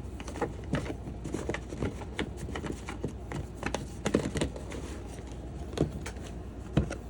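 Trading cards and their packaging being handled: irregular light clicks and rustles, with a couple of sharper taps, over a low steady hum.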